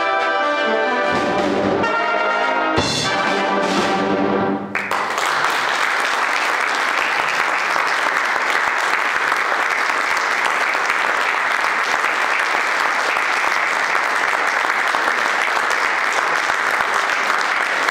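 Brass band with drums playing the final bars of a festival march, ending on a held closing chord about four and a half seconds in. The audience then applauds steadily for the rest of the time.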